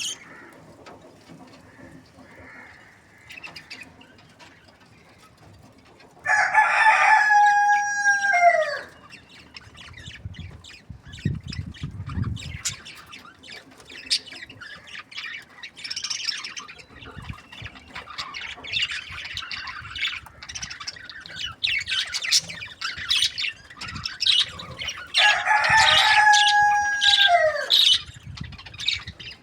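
A rooster crows twice, each crow a long held call that falls away at its end, the first about six seconds in and the second near the end. Small birds chirp busily in short high notes between the crows, and there is a low rumble about ten seconds in.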